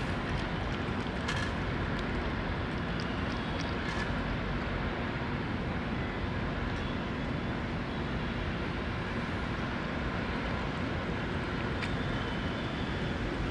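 A steady low rumble of outdoor background noise, with a few faint soft clicks (about a second in, around four seconds in and near the end) from a cat licking and chewing wet food in a metal dish.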